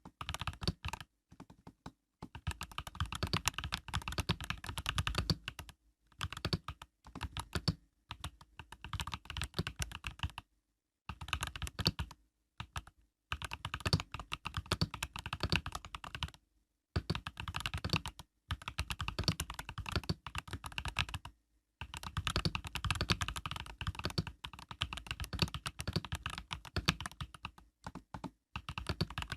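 Typing on an Epomaker EK68 mechanical keyboard with Epomaker Budgerigar tactile switches: quick runs of keystrokes clacking, broken by short pauses.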